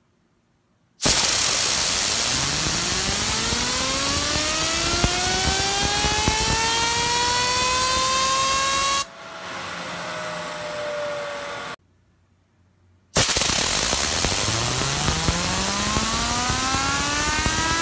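Compressed air hissing from an air blow gun onto a clamped copper fidget spinner, which whines as it spins up, its pitch climbing steadily. About nine seconds in the air cuts off and the whine falls as the spinner coasts. After a short silence a second blast starts and the whine climbs again.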